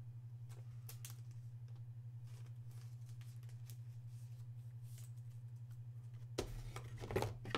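Faint clicks and rustles of a trading card in a clear plastic sleeve being handled, over a steady low hum. A louder stretch of handling noise comes about six and a half seconds in.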